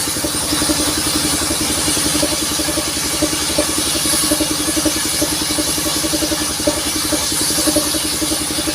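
The engine of a modified sawmill vehicle running steadily, with a rapid even pulse and a steady high hiss above it.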